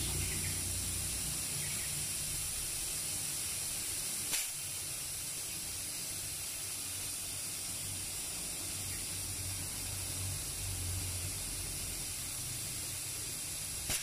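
Air hissing steadily out of the open end of a copper refrigerant line, driven by two refrigerator compressors running together, with the compressors' low hum beneath. This is an output test of the twin compressors, and the flow is judged fairly good. A short click about four seconds in.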